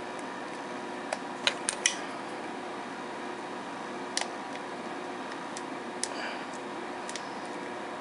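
Sharp plastic clicks and taps from the parts of a model airliner being handled and fitted together: a quick cluster of four about a second and a half in, then single clicks every second or two, over a steady hiss.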